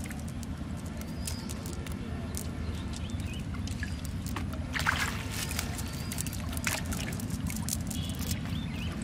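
Water sloshing and trickling as hands work a wet cast net in shallow pond water, with small irregular splashes and drips from the mesh, a busier cluster about five seconds in.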